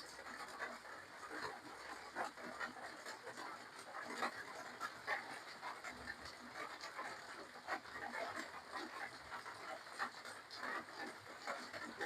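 A person eating close to the microphone: wet chewing and lip-smacking, with many small irregular mouth clicks.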